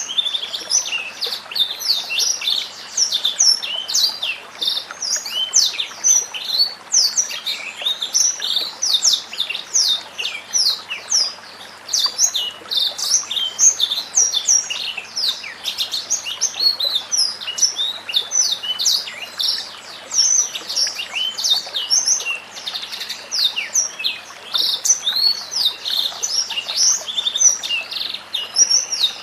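Songbird singing a dense, unbroken stream of rapid high chirps and short whistles.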